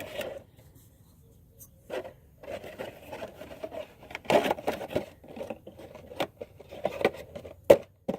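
Spin-on oil filter being screwed on by hand: irregular scraping and rubbing in short bursts, with a sharp click near the end.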